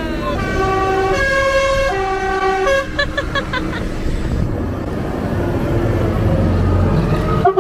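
Musical air horn sounding a tune of held notes at stepped pitches, ending in a quick run of short notes about three seconds in. Then a tractor engine running as a tractor passes close, and the horn tune starts again at the very end.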